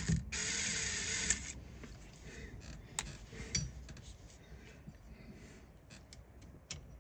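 Light clicks and handling noises of small parts and tools being worked into a steering column, with a short hiss about a second long at the start.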